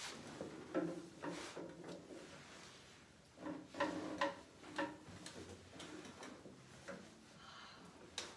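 Faint wooden knocks, taps and rubbing as cellos, bows and chairs are handled and set in place, with a cluster of louder knocks about three and a half to four and a half seconds in.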